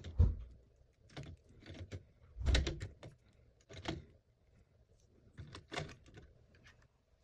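Irregular light clicks and knocks of plastic toilet fill-valve parts being handled and fitted together. The loudest cluster comes about two and a half seconds in.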